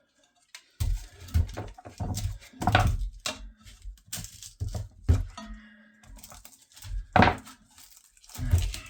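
Handling noise from the teardown of an under-sink boiler: irregular knocks, thuds and scraping as the casing and its charred insulation are handled and pried at. The knocks start about a second in.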